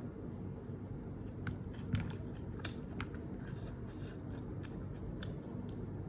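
A person chewing and biting food close to the microphone: scattered sharp mouth clicks and smacks over a steady low background hum.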